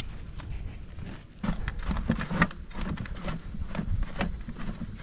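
Footsteps at a walking pace, about two a second, with knocks and rustles from the gear that is being carried.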